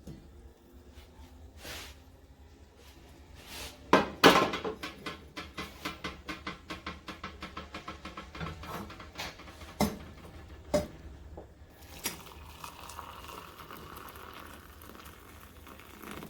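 Kitchenware clinking and knocking: two sharp knocks about four seconds in, then a quick, even run of fading clicks for several seconds, a few single knocks, and a faint hiss near the end.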